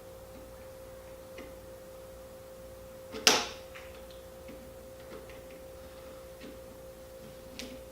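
Parts of a drill housing being handled and fitted during reassembly: a few faint small clicks and one sharp clack about three seconds in, over a steady hum.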